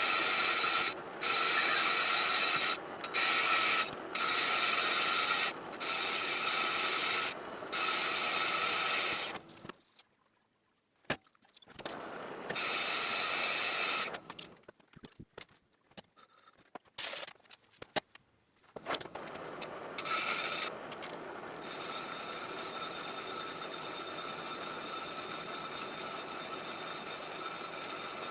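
Manual metal lathe running while turning EN8 steel, a steady machine whir with a high gear tone, cut off briefly several times in the first nine seconds. About ten seconds in it goes nearly silent with a few clicks and short bursts, then the lathe runs steadily again for the last third.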